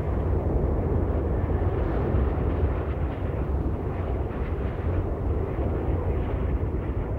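Steady deep rumble of a jet airliner in flight, engine and air noise without let-up.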